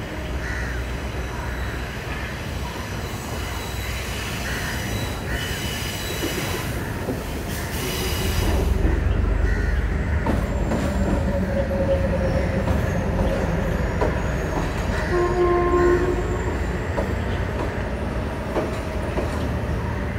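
Sri Lanka Railways Class M2 (EMD G12) diesel locomotive, with its GM 567C two-stroke V12, hauling a mixed train past. A heavy low engine rumble grows louder about eight seconds in and stays loud as the train rolls by.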